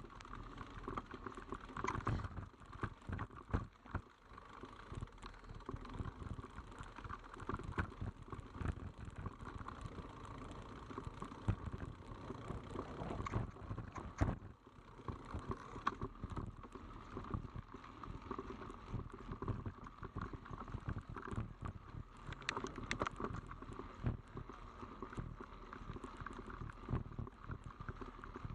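Mountain bike clattering over a rough, technical forest trail: a constant irregular rattle of knocks and jolts over a steady whirr, with harder knocks about two seconds and fourteen seconds in.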